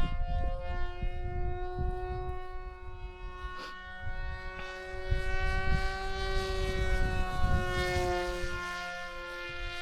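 Electric motor and propeller of a foam-board RC plane whining in flight, one steady high pitch that rises slightly in the middle and drops a little near the end. Wind rumbles on the microphone underneath.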